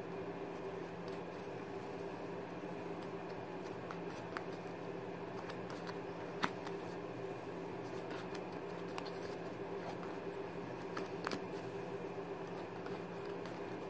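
Playing cards handled in the hands, giving a few soft, sharp clicks and snaps, the strongest about halfway through and two close together later. A steady low hum runs underneath.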